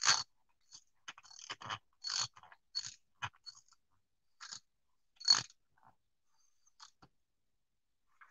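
Irregular metallic clicks and scrapes from a T-handle socket wrench turning and seating on the bolts of a sprayer pump's brass manifold head as they are tightened, with a sharper knock about five seconds in.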